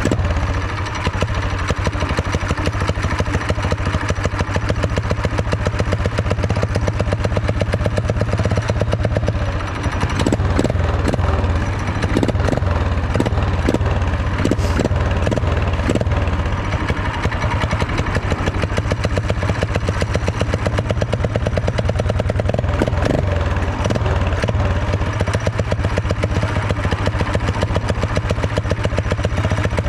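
A 212 cc single-cylinder four-stroke motorized-bicycle engine idling steadily, with traffic passing in the middle.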